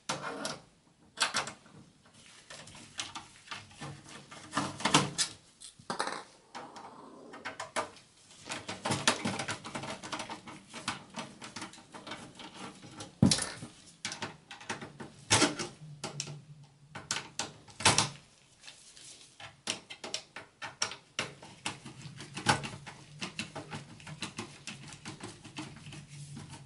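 A Phillips screwdriver and gloved hands working on the rear system fan inside a metal desktop PC case: irregular clicks, taps and knocks as the fan's screws are backed out and the fan is handled.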